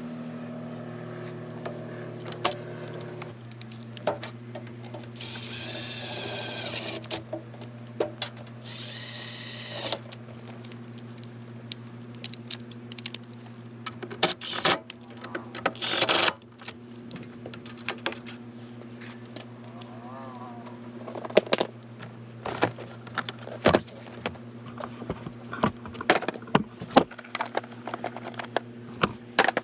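Hand tools and metal motorcycle parts being handled: scattered clinks, taps and knocks over a steady low hum, with two short rasping noises about five and nine seconds in.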